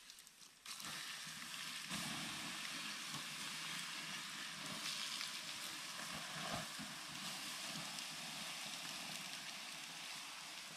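Campfire embers hissing and sizzling steadily as they are doused with water to put the fire out, with a few faint crackles; the hiss starts under a second in and grows louder about two seconds in.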